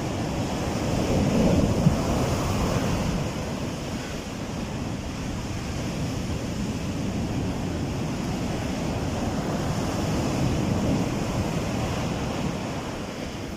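Heavy surf breaking and strong wind buffeting the microphone, a steady rushing that swells about a second in and again near the end.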